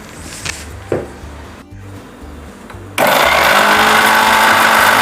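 A light knock about a second in, then an electric mixer grinder switches on abruptly about three seconds in and runs loud and steady, grinding cardamom to powder in its jar.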